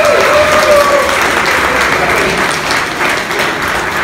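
Audience applauding in a large hall, the clapping slowly dying down.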